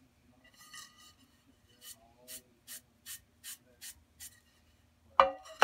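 Damp sponge wiping a bisque-fired ceramic plate in quick, even strokes, about seven in a row at a little over two a second. Near the end, two loud knocks with a short metallic ring as the plate is set down on the metal banding wheel.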